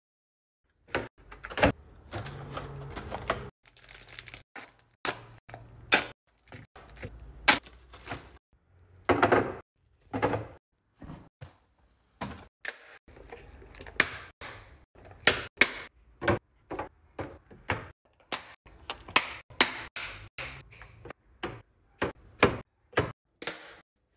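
Restocking a fridge: plastic snack cups and food packs set down in clear plastic organizer bins, making an irregular run of sharp clacks and knocks.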